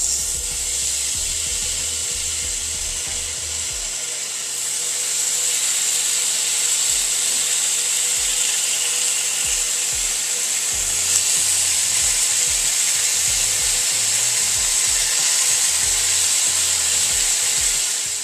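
Raw bacon sizzling steadily in a hot preheated skillet, the sizzle getting louder about five seconds in as more slices go into the pan.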